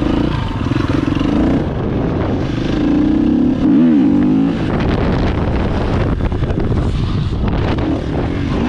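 Supermoto motorcycle engine running under throttle, heard close up from the rider's helmet, with the revs rising and falling about halfway through and climbing again at the end.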